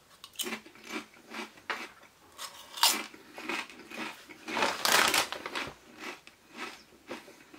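Crisps being bitten and chewed, a string of crunches about two a second, loudest about three seconds and five seconds in.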